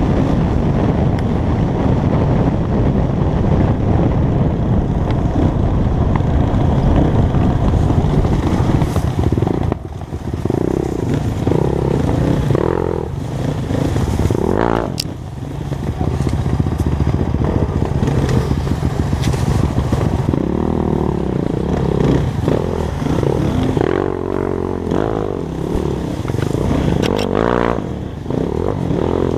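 Dirt bike engine running under way, its pitch rising and falling with the throttle, easing off briefly about ten and fifteen seconds in.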